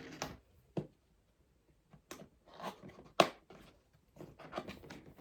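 Packaging of a PC power supply being handled during unboxing: irregular crinkling, rustling and light tapping, with one sharp knock about three seconds in.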